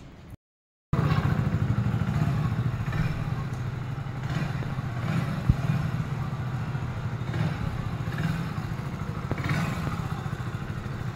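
A new Hero Splendor+ motorcycle's single-cylinder engine idling steadily, starting about a second in. One sharp knock about halfway through.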